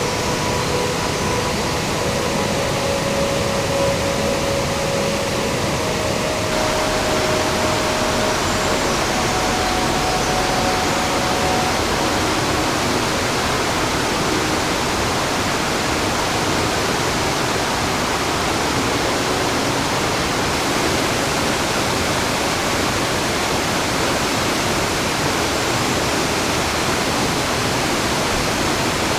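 Mountain stream rushing over rapids and small falls, a loud steady roar of water that changes slightly about six seconds in.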